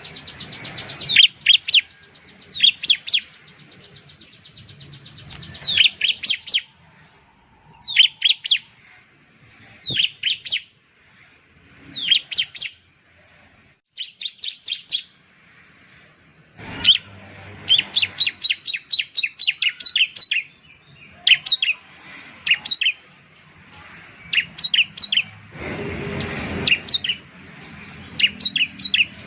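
Bar-winged prinia (ciblek) singing: loud, sharp high notes that each drop quickly in pitch, delivered in quick runs of several notes with short pauses between runs.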